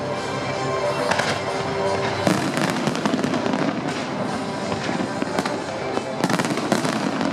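Large fireworks display: dense, irregular crackling and popping from aerial shells and crackle stars, with louder sharp bangs about two seconds in and again near the end.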